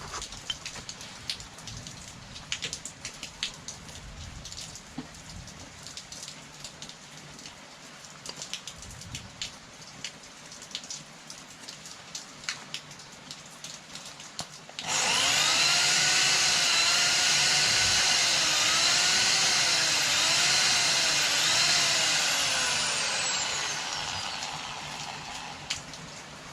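Scattered light clicks and taps of work on parts. About halfway through, a high-speed power tool starts abruptly with a loud rushing whine whose pitch dips several times under load. Near the end the whine slides down and fades as the tool spins down.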